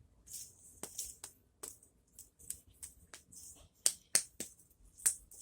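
Irregular sharp clicks and short rustles of a plastic fidget spinner being handled.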